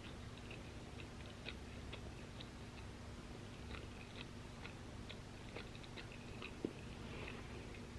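Close-miked chewing of crunchy waffle fries: scattered small crunches and clicks, with one sharper click about two-thirds of the way in, over a faint steady hum.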